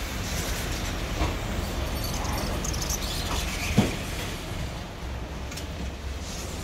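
Stroller wheels rolling over the entrance floor and ribbed doormat with a steady low rumble, and a single knock a little under four seconds in.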